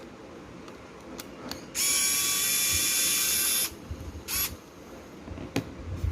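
A small electric motor whirring at high speed for about two seconds, cut off suddenly, then running again in a brief burst. A few light clicks come before and after.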